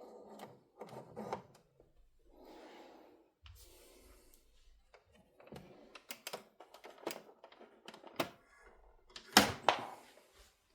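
Scattered clicks and knocks from an ITT Schaub-Lorenz Weekend 220 portable radio being handled, with a loud double click near the end. Several short spells of faint, muffled noise come between the clicks.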